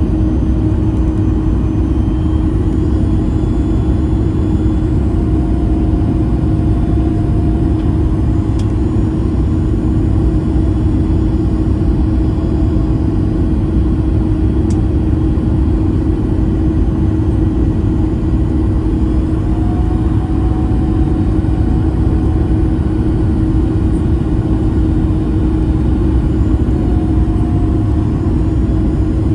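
Steady in-cabin roar of a Boeing 737 MAX 8's CFM LEAP-1B engines and airflow during descent on approach, with a constant low hum.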